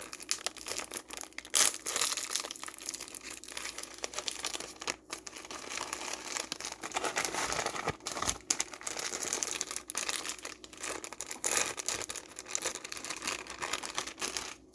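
Mail packaging being torn open and crinkled by hand: a continuous, irregular run of crackles and rips.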